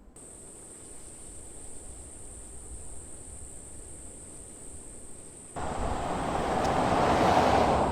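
A steady high-pitched insect drone over a low rumble. About five and a half seconds in, a vehicle passes close by, its noise rising to a peak and then fading.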